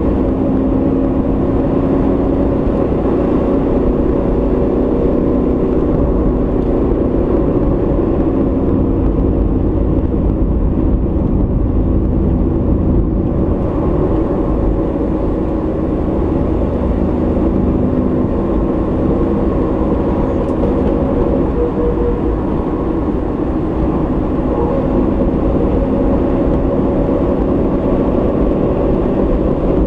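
Car driving at a steady speed, heard from inside the cabin: a steady low drone of engine and tyre noise with a faint engine hum.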